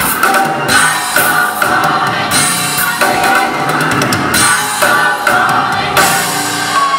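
Gospel choir singing with a live band, the drum kit and cymbals keeping a steady beat under sustained voices.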